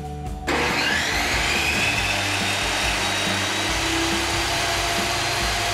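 Table saw switched on about half a second in: the motor and blade spin up with a rising whine, then run steadily while a 2x4 is ripped lengthwise down the middle.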